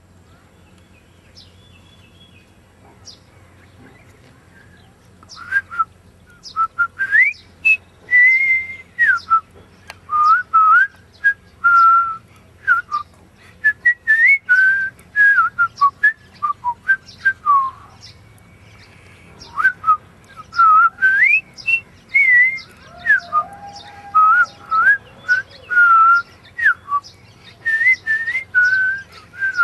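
A man whistling a tune through pursed lips: a run of short, sliding notes that starts about five seconds in, over a faint low hum.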